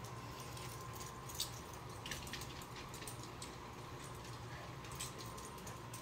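Steady low hum and faint water noise from a reef aquarium's running equipment, with a few faint small clicks scattered through.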